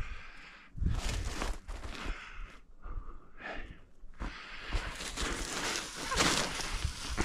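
A person walking through dry cover: irregular footsteps and brush rustling, busiest in the last couple of seconds, with breathing.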